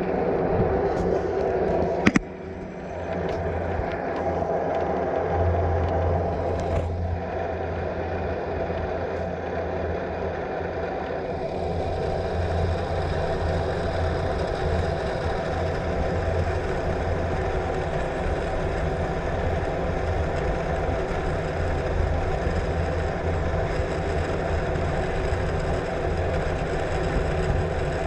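Steady rumble and hum of a cable car cabin riding along its haul cable, mixed with wind noise, with a single sharp knock about two seconds in.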